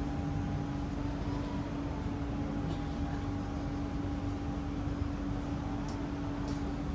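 Kawasaki & CSR Sifang C151A metro train running, heard from inside the carriage: a steady rumble with a constant hum, and a fainter higher whine that rises slightly about a second in and then eases back down.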